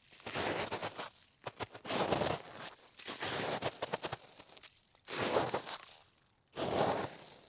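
A snow shovel scraping and crunching through snow in repeated strokes, about five in a row, one of them longer and drawn out in the middle.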